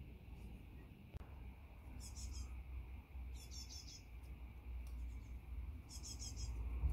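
A small bird singing three short phrases of rapid, high chirping notes a second or two apart, over a steady low rumble.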